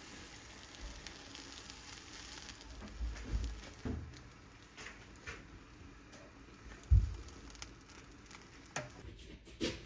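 A sandwich frying in a nonstick pan, a faint steady sizzle. There are a few soft knocks, then a sharper dull knock about seven seconds in as a ceramic plate is set on top to press it.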